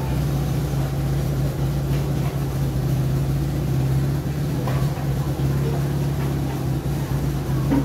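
A motor running steadily with a constant low hum.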